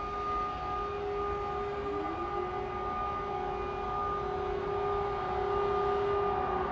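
Civil defence air raid sirens sounding an air attack warning: several steady tones held at different pitches, with another siren winding up to pitch about two seconds in.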